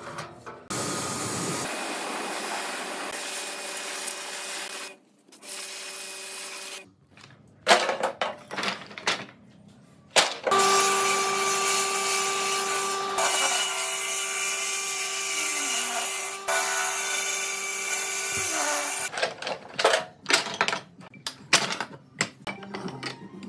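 A power tool cutting or working wood, running steadily in two long stretches. Between the stretches come short irregular knocks and taps of wood being handled.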